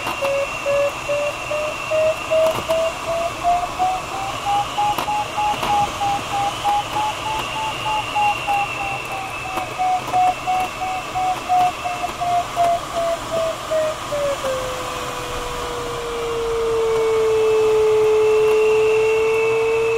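Glider's audio variometer beeping about three times a second, its pitch rising and then falling as the climb in the thermal strengthens and weakens; about 14 seconds in the beeps give way to a steady, lower continuous tone, the variometer's signal that the glider has left the lift and is sinking. Under it, the steady rush of air over the cockpit canopy.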